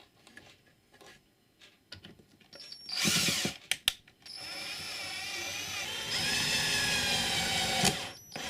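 Power drill running: a few light clicks of handling, a short burst about three seconds in, then a steady run of about four seconds with its pitch wavering, stopping near the end.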